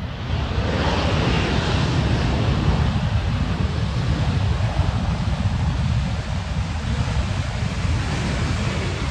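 Regional jet's twin turbofan engines at takeoff thrust, a loud steady roar with a hissing top as the airliner accelerates down the runway. Wind rumbles on the microphone underneath.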